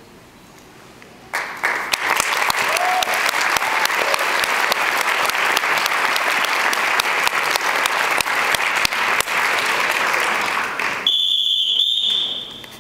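Audience applause breaks out about a second in, many hands clapping in the hall. Near the end it stops and a high steady tone sounds for about two seconds.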